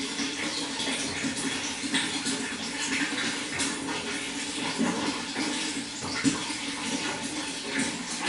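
Running water flowing steadily, with many small splashes through the flow.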